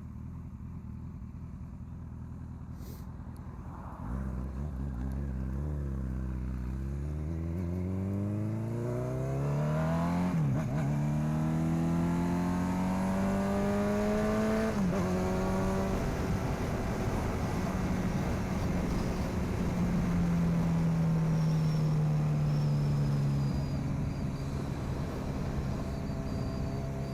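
Honda CB1000R inline-four through an aftermarket sport exhaust, under way and accelerating. The engine note climbs, drops sharply at two upshifts about ten and fifteen seconds in, then holds steady and slowly falls as the throttle eases.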